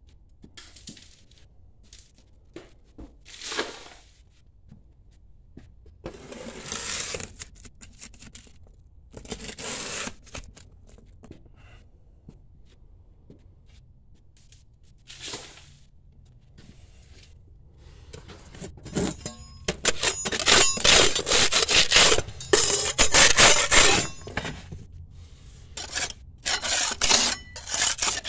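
Scraping and knocking at an old basement window frame and the crumbling masonry and debris around it. A few short scrapes at first, then about two-thirds of the way through a long, loud stretch of dense scraping and rattling.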